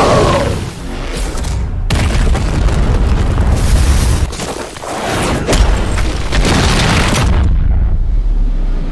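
Deep booms and a continuous low rumble of anime battle explosion effects, mixed with music. About seven seconds in the hissing upper part drops away, leaving only the low rumble.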